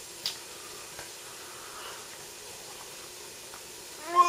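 Steady faint hiss with a couple of light clicks of cup or spoon, then near the end a short pitched slurp as thick hot chocolate is sipped from a cup.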